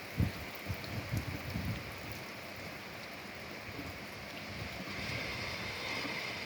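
Steady rain falling, an even hiss with a few low thuds of heavy drops in the first couple of seconds. The hiss swells slightly near the end.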